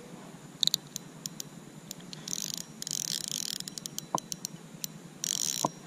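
Ultralight spinning reel's drag buzzing in short clicking bursts, one about two seconds in and a shorter one near the end, with scattered sharp clicks between: a hooked bass pulling line off against the drag.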